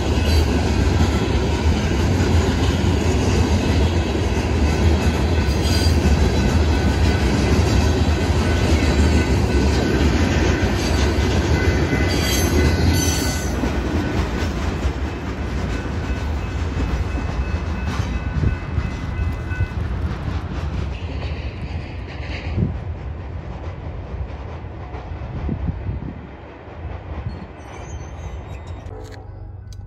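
Freight train of covered hopper cars rolling past: a steady rumble and clatter of wheels on the rails. It dies away over the second half as the last cars pass.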